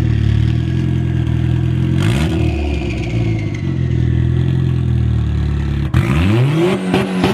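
Engine of a turbo-swapped 2007 Chevrolet Cobalt SS running at a steady speed, with a short rev blip about two seconds in. Near the end it drops out for a moment, then revs up sharply and breaks into a rapid stutter.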